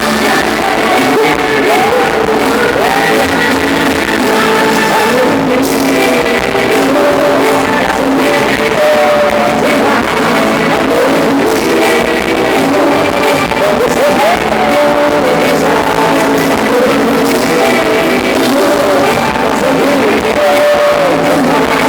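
A band playing continuous music with a singing voice over it; the band's name points to forró.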